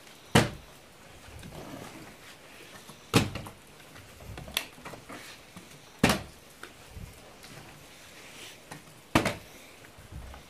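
Partly filled plastic water bottle being flipped and landing on a hard floor: four loud thuds about three seconds apart, with fainter knocks in between as it is handled and picked up.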